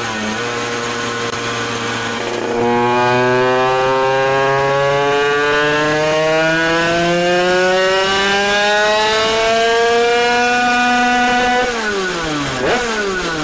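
Derbi Euro 3 two-stroke motorcycle engine on a power dyno. It runs steadily at first; about two and a half seconds in it is held at full throttle and its pitch climbs for about nine seconds, then the throttle is shut and the revs fall away near the end. This is a full-throttle power run after adding ignition advance.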